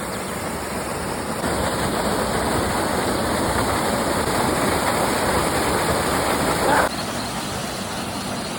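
Waterfall: a steady rush of falling water, growing louder after a second or so and dropping off suddenly a little before the end.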